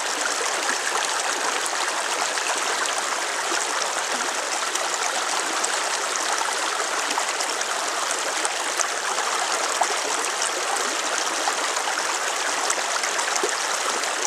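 Creek water running steadily through a gold sluice box: an even rush with many small splashes throughout.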